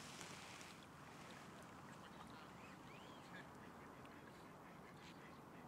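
Near silence by open water: a faint outdoor hush with a few faint, short bird calls, one arching call about three seconds in.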